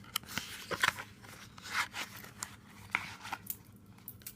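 Packaging being squeezed and handled: irregular crinkling and rustling with small sharp clicks.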